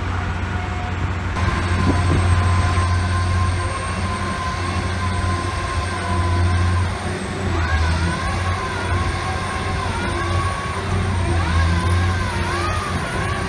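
Soilmec SR-75 rotary piling rig running steadily with a low, constant engine drone. About halfway through, a higher whine joins it and wavers up and down.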